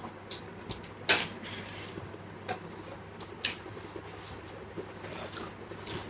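Scattered short clicks and taps from eating and handling food, the sharpest about a second in, over quiet room tone.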